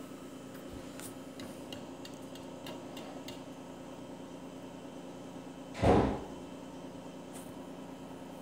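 A single dull thump about six seconds in, over a steady low hum, with a few faint clicks in the first few seconds.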